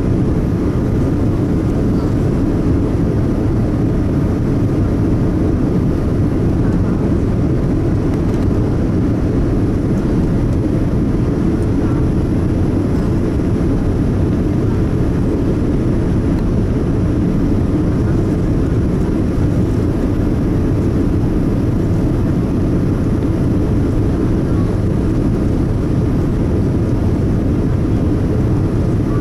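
Steady low cabin noise of a Boeing 787 Dreamliner in flight: airflow and engine noise heard from inside the cabin, even and unchanging throughout.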